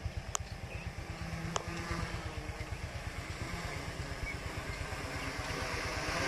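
Homemade F450 quadcopter's motors and propellers buzzing overhead, getting louder toward the end as it comes nearer, over a steady low rumble. Two sharp clicks sound in the first two seconds.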